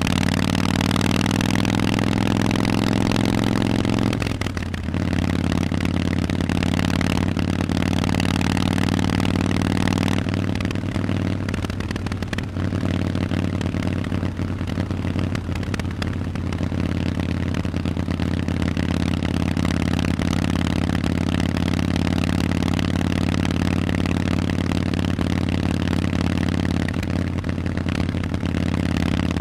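Harley-Davidson Forty-Eight's air-cooled V-twin running through Vance & Hines aftermarket exhausts, holding steady revs, with a brief dip in the engine note about four to five seconds in.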